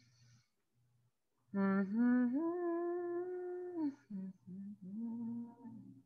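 A woman humming to herself: a long note that steps up in pitch and is held for about two seconds, then a few shorter, lower notes.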